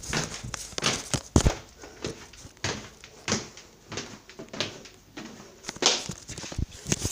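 Footsteps and handling bumps from a hand-held phone carried while walking: irregular thuds about one or two a second, with a louder knock about a second and a half in.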